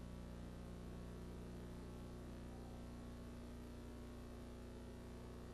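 Faint, steady electrical mains hum with a light hiss underneath.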